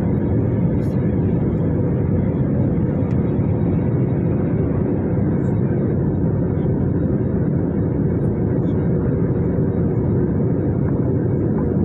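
Steady jet engine and airflow noise of an Airbus A320, heard inside the cabin from a seat over the wing, holding an even level throughout.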